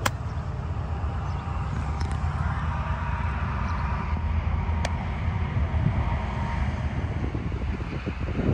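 Wind buffeting the camera microphone in a steady low rumble. Right at the start comes one sharp click: a golf club striking the ball on a chip shot.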